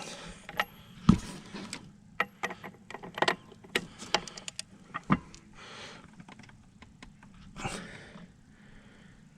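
Hand tools and metal parts clinking and knocking during engine work: a series of sharp clicks and knocks, the loudest about a second in, mixed with a few short rustling sounds.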